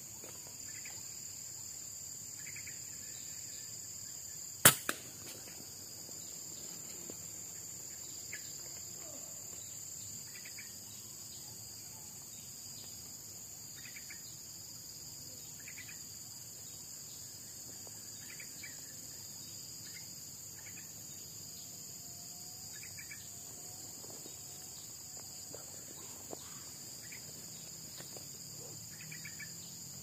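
A single shot from a scoped air rifle about five seconds in, a sharp crack followed a moment later by a quieter knock, over a steady high drone of insects.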